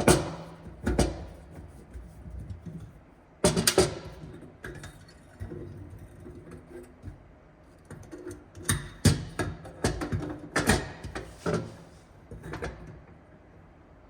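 Irregular metallic clanks and knocks as a fuel tank sending unit is turned and tried against its mounting bolt pattern, with music playing in the background.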